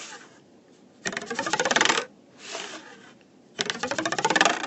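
A ruler twanged off the edge of a table, buzzing and rattling against the tabletop, twice. The pitch rises as the ruler is slid back onto the table, so the overhang gets shorter.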